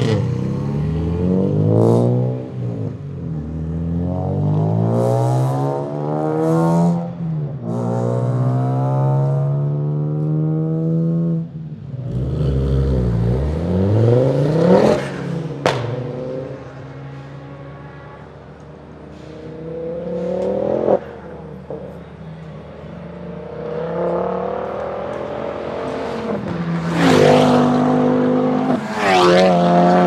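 Tuned hatchback cars, a VW Golf and a Ford Focus among them, accelerating hard one after another, each engine note climbing and dropping back through several quick upshifts. A couple of sharp cracks cut through, one in the middle and one a few seconds later.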